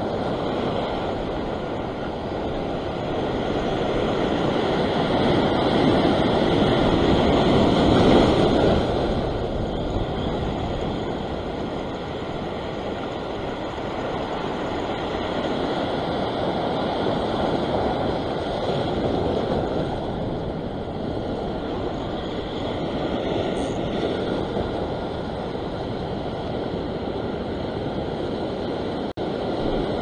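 Surf breaking and washing over a flat rock ledge, with wind on the microphone; the wash swells to its loudest about eight seconds in, then settles to a steady rush.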